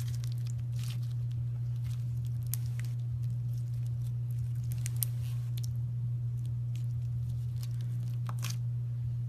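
Slime being squeezed and worked by hand, giving scattered crackling clicks and pops over a steady low hum.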